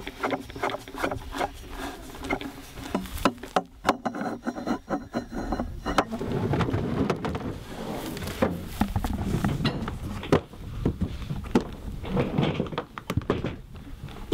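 Handling noise from a hard plastic rifle case being opened: a series of sharp clicks and knocks from its latches and lid, with rubbing and bumping as gear is moved.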